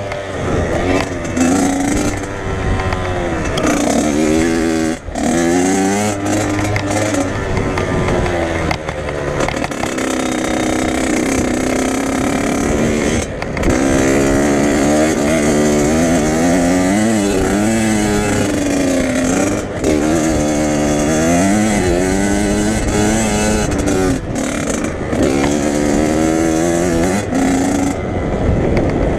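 Dirt bike engine revving up and down over and over as it is ridden hard around a motocross track, the throttle opening and closing between jumps and corners, with a few brief sudden drops in the sound.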